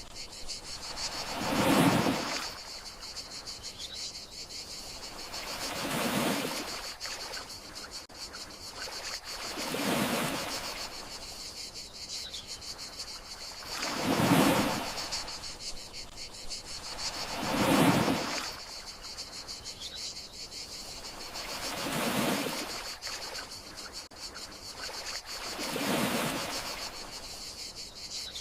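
Gentle sea waves washing in and out, one swell about every four seconds, over a steady chirring of crickets.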